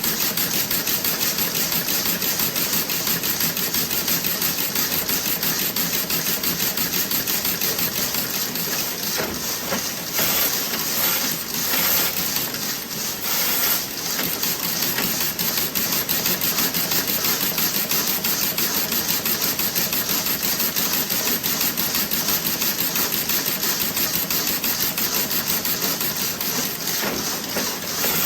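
Toe-sock knitting machine running, a rapid, even mechanical clatter of clicks. About ten seconds in the rhythm turns uneven for a few seconds, with some louder bursts, then settles back into the even clatter.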